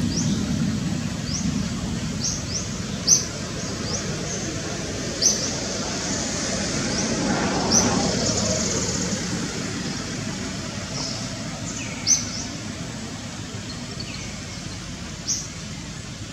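Outdoor ambience: a bird gives a short, sharp, high chirp again and again, every second or few, over a steady hiss of background noise. A couple of brief falling calls come in past the middle.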